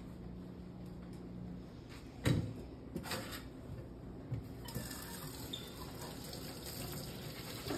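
A knock about two seconds in and a few light clicks, then a faucet running into a stainless steel sink from about two-thirds of the way in, with water splashing over a surgical instrument being scrubbed with a brush.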